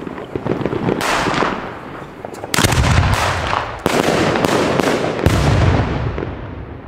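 4-inch aerial firework shells bursting one after another: four heavy booms a second or so apart, the later ones deepest. Each trails off in a long rolling echo.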